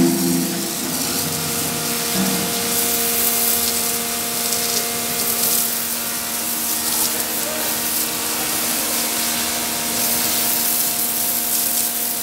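Pressure washer spraying a jet of water onto a cow's hide and the wet concrete floor: a continuous hiss over the steady hum of the washer's motor.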